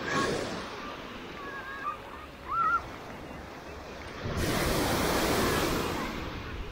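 Small Black Sea waves washing onto a sandy beach, with a louder wash of a breaking wave about four seconds in. A short high-pitched call sounds briefly about two and a half seconds in.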